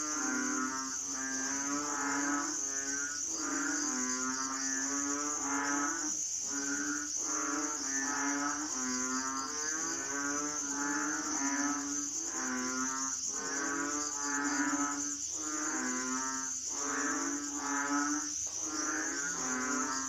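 A chorus of frogs calling: pitched calls repeat about once a second and overlap, over a steady high trill of insects.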